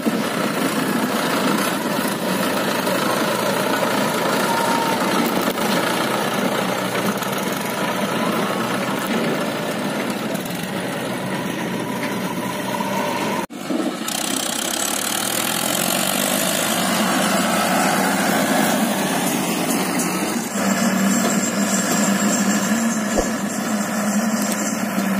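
Swaraj 843 XM tractor's diesel engine running steadily under load while pulling a loaded trolley. The sound drops out for a moment about halfway through, then the engine runs on.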